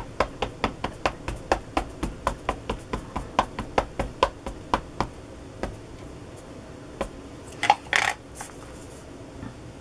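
A StazOn ink pad's plastic case tapping rapidly on a rubber background stamp, about five light taps a second, as the stamp is inked. The tapping stops about five seconds in; a couple of louder scuffs follow about eight seconds in.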